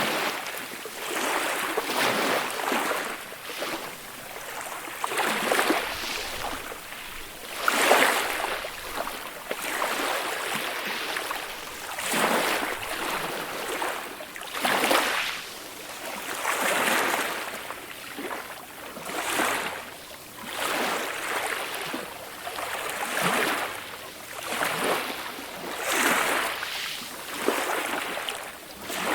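Calm ocean waves washing in and breaking, one gentle swell of surf hiss about every two to three seconds.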